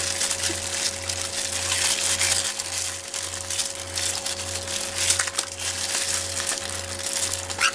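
Thin disposable plastic gloves crinkling and rustling as the hands squeeze and pull the innards out of a squid, a continuous crackle of many small rustles over a steady faint hum.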